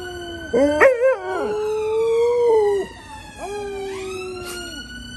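Alaskan malamutes howling along with a wailing emergency siren. There are two long howls, the first opening with a wavering yodel, while the siren's steady high tone sinks slowly in pitch behind them.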